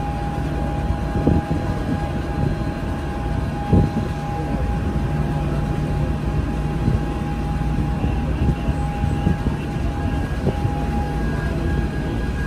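Passenger boat's engine running steadily under way, heard from on board: a constant low drone with a steady whine over it. Two short low thumps come about one and four seconds in.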